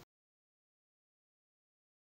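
Digital silence: the sound track drops to nothing as the narration stops.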